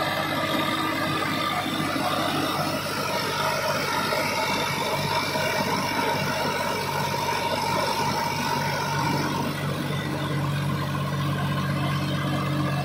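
Swaraj 963 FE 4WD tractor's three-cylinder diesel engine running steadily, the tractor stuck with its tyres dug into loose sand.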